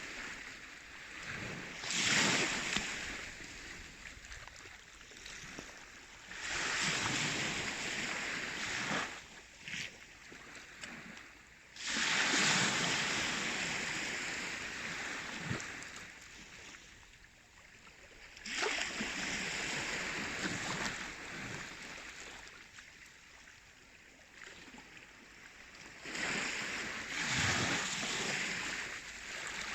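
Baltic Sea waves washing in, a rush of hissing surf that swells and ebbs every five to seven seconds.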